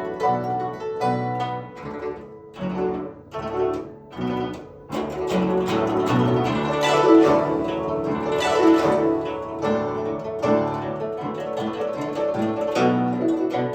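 Guzheng (Chinese plucked zither) solo: rapid plucked notes and sweeping strums, with dense, busy passages.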